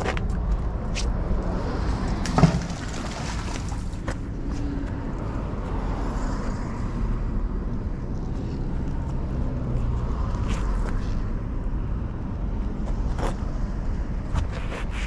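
Steady low outdoor rumble with a single sharp knock about two and a half seconds in and a few faint clicks later.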